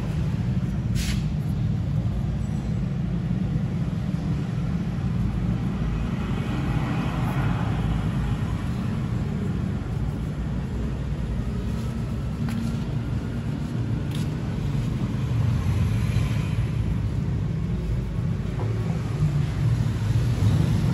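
A steady low rumble, with faint rubbing of a cloth being wiped over the motorcycle's metal parts.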